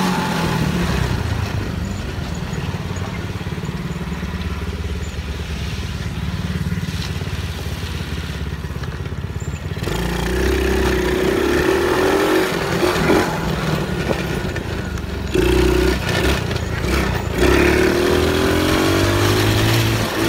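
ATV engine running while being ridden. It is steady at first, then louder from about halfway, revving up and down several times.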